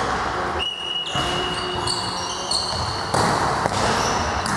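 Indoor volleyball play in a sports hall: thuds of the ball and players' feet on the court, with squeaks and a thin high tone held for about two seconds starting about half a second in.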